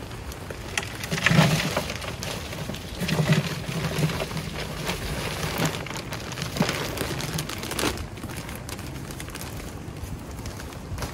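Potting mix pouring out of a plastic bag into a plastic container: a rain-like rustling patter, heaviest in the first few seconds and thinning out after about eight seconds.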